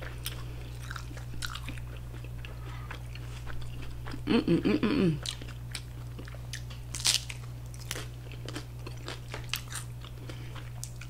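Close-miked crunching and chewing of a hard corn taco shell, a run of sharp, crisp crunches. About four seconds in comes a short hummed voice sound, falling in pitch, over a steady low hum.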